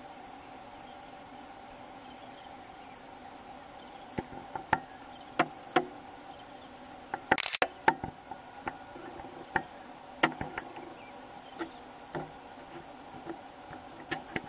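A steady insect chorus, joined from about four seconds in by scattered sharp clicks and knocks. The loudest is a brief noisy burst near the middle.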